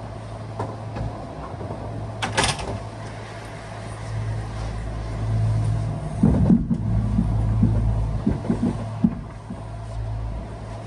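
Cabin sound of a Kintetsu 1620-series electric train: a steady low electrical hum from the car's equipment, a sharp clunk about two seconds in, and a run of irregular knocks and rattles from about six seconds on.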